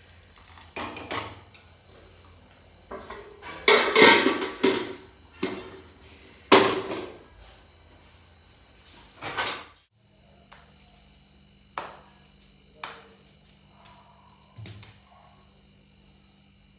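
Steel kitchen utensils clattering: a ladle knocking against a cooking pot while pots and lids are handled, with several loud clanks in the first ten seconds. After that, a steady low hum with a few light taps.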